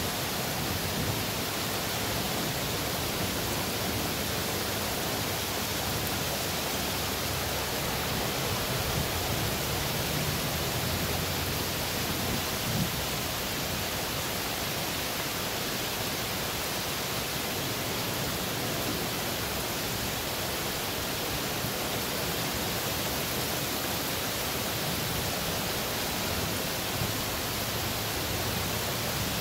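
Heavy thunderstorm rain falling steadily, a dense, even hiss.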